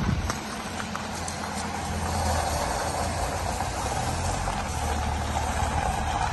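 Jeep Renegade SUV rolling slowly over gravel, with the tyres crunching steadily over the low hum of its engine.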